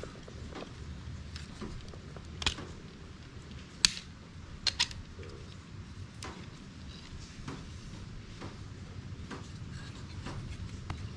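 Small clicks and taps of plastic and metal as a fuel tank sending unit and its wiring are handled: a few sharp clicks within the first five seconds, over low steady background noise.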